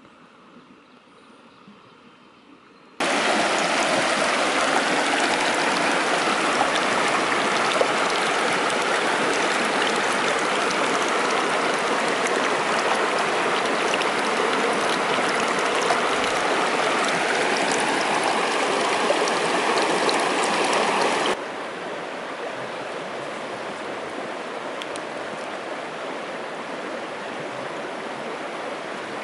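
Shallow stream water rushing close to the microphone, loud and steady with a fine crackle, starting suddenly about three seconds in; about three quarters of the way through it drops to a quieter steady rush.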